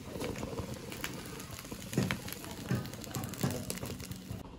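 Leaf-wrapped sardines frying on a covered dosa griddle over a lowered flame: a steady soft sizzle with crackling.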